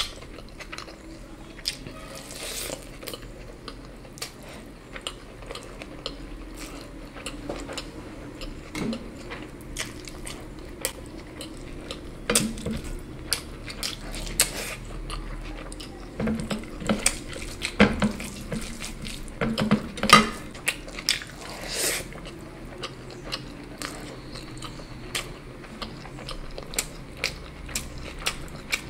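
Close-miked eating sounds: chewing and wet mouth noises with many short clicks and light clinks of dishes, a few louder ones about two-thirds of the way in.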